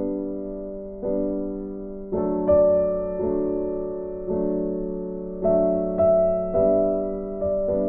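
Soft background piano music: slow chords, each struck and left to fade before the next.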